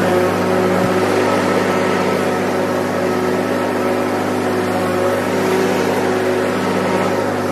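Stand-on zero-turn lawn mower's engine running steadily at working speed while mowing grass, with a slight waver in its pitch as the load changes.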